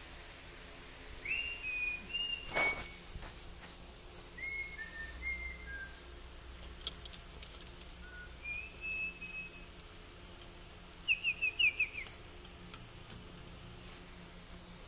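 Short, high whistled notes, some held briefly and some stepping down in pitch, with a quick run of five falling chirps about eleven seconds in. A few light clicks and a sharp knock about two and a half seconds in.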